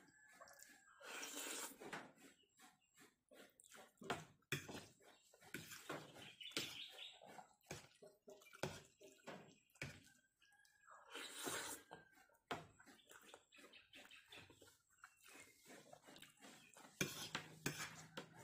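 Faint eating sounds: a fork clinking and scraping on a plate of spaghetti, with chewing and mouth smacks, as many short irregular clicks.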